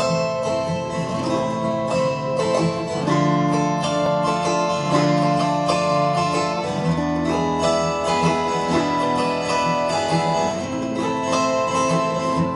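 Acoustic guitar strumming chords together with an autoharp, playing the instrumental introduction of a slow song before the vocals come in.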